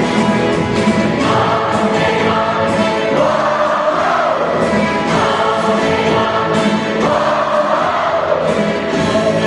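A group of voices singing a song together with instrumental backing.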